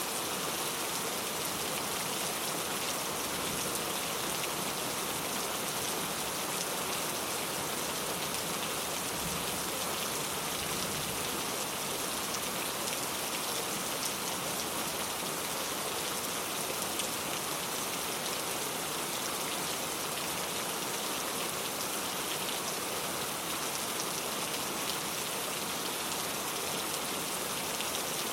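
Steady rain falling, an even hiss with fine scattered patter of drops.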